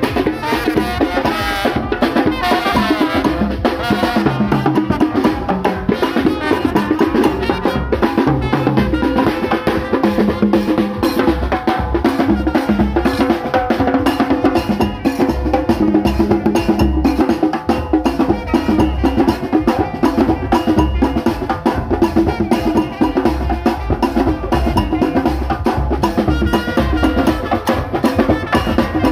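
Brass band playing a brisk tune: a bass drum and a set of stick-beaten drums keep a busy, steady beat under trumpets and other horns.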